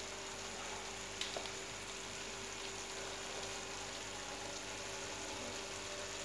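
Chicken pieces sizzling gently in butter in a nonstick karahi as they are sautéed: a steady, soft hiss, with one faint click about a second in.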